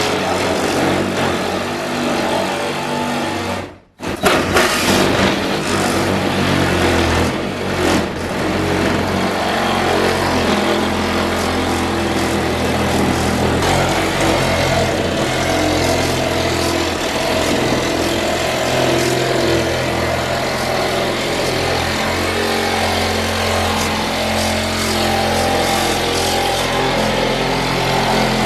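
An engine running steadily, with a brief cut-out about four seconds in.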